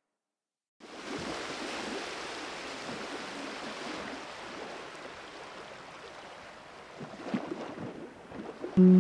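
Steady rushing hiss, like wind or water, that begins suddenly about a second in and fades slowly, with a few faint ticks near the end. Guitar music starts right at the close.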